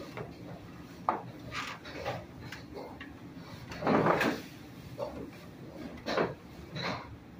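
Scattered household handling sounds: a few short knocks and clatters, the loudest a brief noisy clatter about four seconds in.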